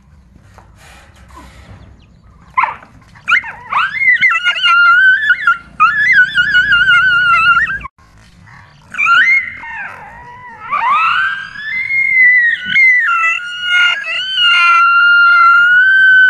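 A dog whining and howling in long, wavering high-pitched cries as it fights a stuffed toy tiger. The cries start about three seconds in, break off abruptly near the middle, and resume a second later.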